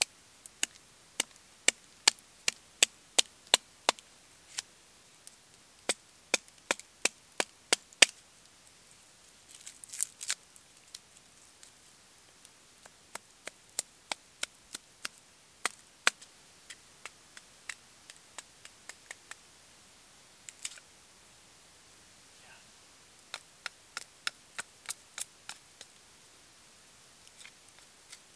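Small axe chopping and carving a green wooden stake: sharp wooden strikes in quick runs of about two or three a second, a dense flurry about ten seconds in, then scattered blows.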